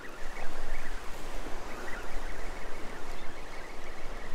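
A spinning reel being cranked steadily as a hooked fish is reeled in from the surf. Wind buffets the microphone over the wash of waves.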